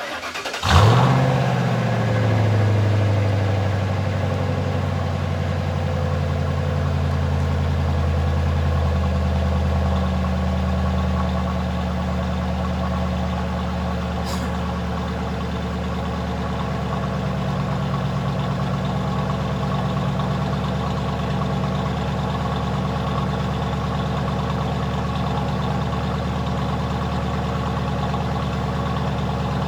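Ford Crown Victoria's 4.6-litre V8 cold-starting: a short crank, it catches and flares up within the first second, then settles into a steady fast idle with a slight exhaust burble. The idle note shifts a little about nine seconds in.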